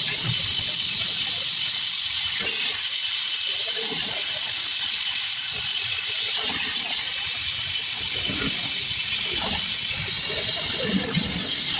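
Gas welding torch flame hissing steadily.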